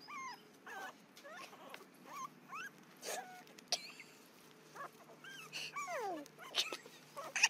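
A puppy whimpering and yipping: a string of short, high whines, many sliding in pitch, with a longer one that falls steeply about six seconds in.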